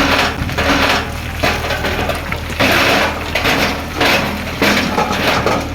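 Backhoe loader's diesel engine running steadily under repeated, irregular loud bursts of crunching and clanking.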